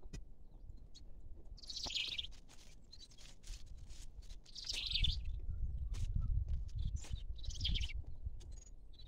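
A small bird chirping in short twittering bursts, about one burst every three seconds, over a low rumble that grows from about halfway through.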